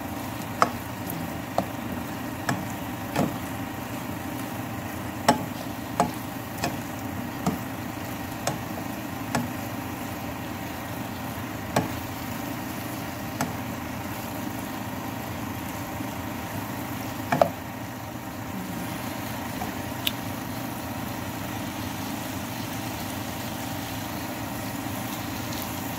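Spatula knocking and scraping against the sides of a nonstick pot about a dozen times while stirring sautéing kimchi and pork, the loudest knock about two-thirds of the way in. After that only a steady background noise.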